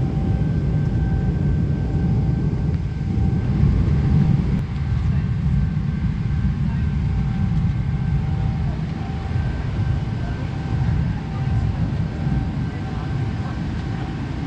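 Steady low rumble of a jet airliner's passenger cabin in flight: engine and airflow noise, with a faint on-and-off tone above it.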